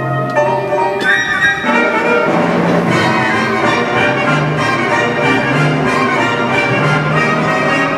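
Orchestral music with brass, played as a figure skater's competition program music.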